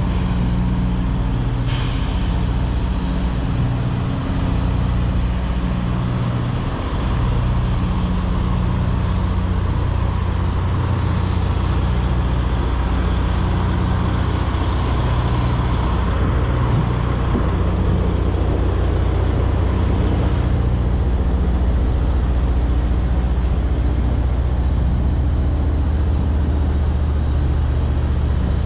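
Semi-truck diesel engine idling steadily, with a short air hiss about two seconds in.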